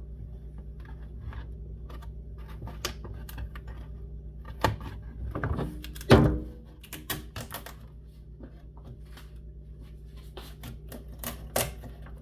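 Skateboard griptape being peeled off the deck by hand without heat: an irregular run of sharp crackling ticks as the strong adhesive lets go, with one louder crack about six seconds in.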